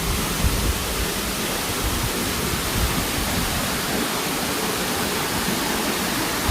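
Steady rush of water from Curug Sidoharjo, a waterfall about 70 metres high.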